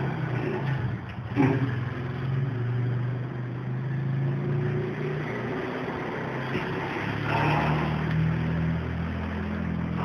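An engine running steadily, its hum stepping slightly in pitch a couple of times, with one sharp knock about a second and a half in.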